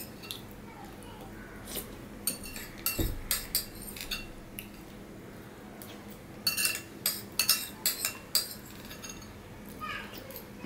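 A steel spoon clinking against ceramic plates and bowls at a meal, in short scattered clicks that cluster about two to four seconds in and again around seven to eight seconds, with one dull thump about three seconds in.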